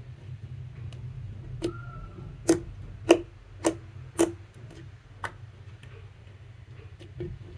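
A string of sharp clicks and pops, about seven, irregularly spaced and loudest in the middle, over a low steady hum.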